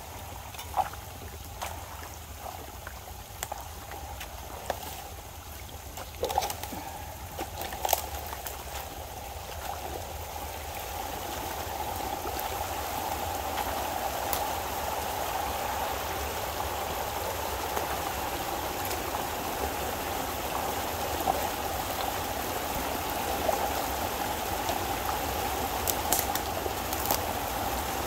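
Water running through a breach in a beaver dam as the pond drains, growing louder after about ten seconds and then holding steady. A few sharp clicks sound over the flow.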